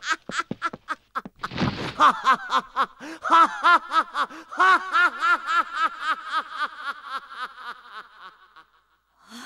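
A man laughing loudly in a long run of rhythmic 'ha-ha-ha' syllables, about three a second, dying away near the end. A short rush of noise cuts across the laughter about a second and a half in.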